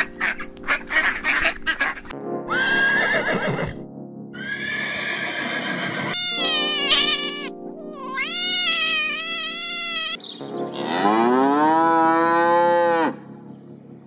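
A duck quacking rapidly, then a cat meowing several times, then one long cow moo near the end, over steady background music.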